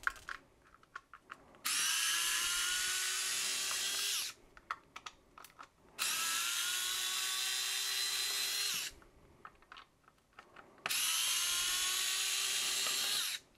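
LLNDEI 4-volt cordless electric screwdriver running three times for about three seconds each, backing screws out of a small device casing. Its motor whine climbs a little in pitch as each run starts. Light clicks come between the runs.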